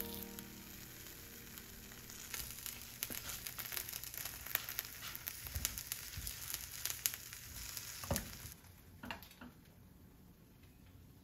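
Miso-topped rice balls wrapped in daikon leaves sizzling and crackling in a frying pan over low heat. The crackling dies down about three quarters of the way in, with a few light knocks around then.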